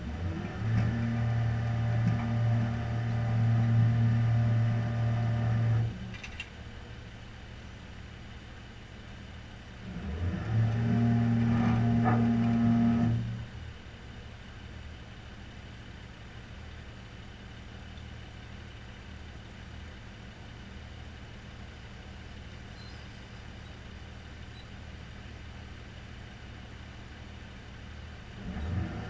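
Tow truck engine stepping up to a steady higher speed in bursts, with a low steady running sound between. The first burst lasts about five seconds from the start, the second about three seconds near the middle, and a third begins at the very end.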